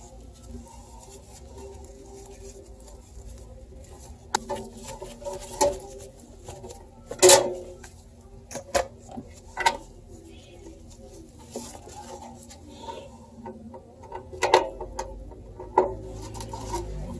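Scattered clicks, taps and knocks of hands handling computer parts and the case during assembly, with the loudest knock about seven seconds in.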